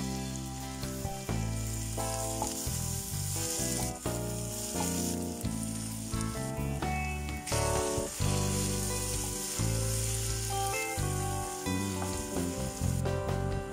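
Sliced onions sizzling as they fry in a pan, stirred with a wooden spatula, over background music.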